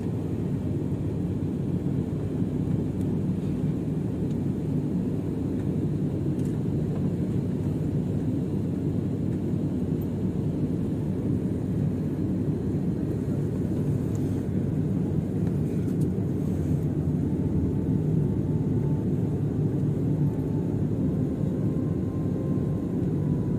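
Steady low rumble inside a jet airliner's cabin: engines and wheels on the runway as the plane rolls along just after landing. A faint high whine comes in near the end.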